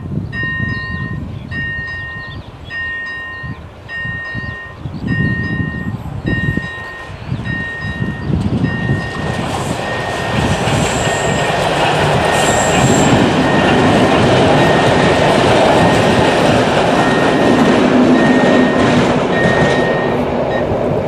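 An electronic level-crossing warning tone repeating about once a second. A T478.1 diesel locomotive hauling passenger coaches approaches and passes, and its running and wheel noise swells from about halfway through to become the loudest sound, with two brief high squeals. Gusts of wind buffet the microphone in the first few seconds.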